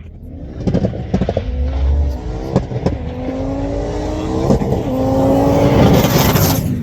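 Race car accelerating hard through the gears down a drag strip. The engine note climbs in each gear and drops back at each of three shifts, with a sharp crack at each change. It grows louder as the car comes close and passes, then falls away suddenly near the end.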